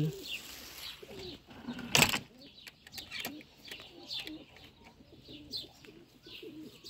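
Domestic pigeons cooing in a loft, with short high chirps repeating throughout and one sharp, loud knock about two seconds in.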